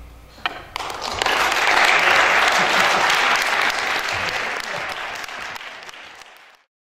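Theatre audience applauding, swelling over the first two seconds and then fading away.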